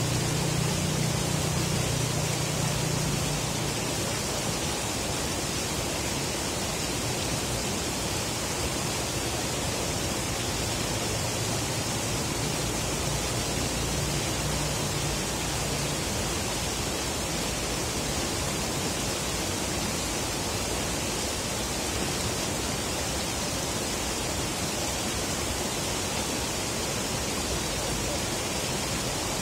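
River water rushing steadily. A low hum sits under it for the first few seconds and comes back briefly around the middle.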